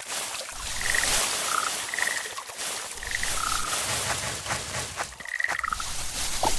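Short two-note animal calls repeated about five times, each a higher note dropping to a lower one, over a steady hiss of background noise.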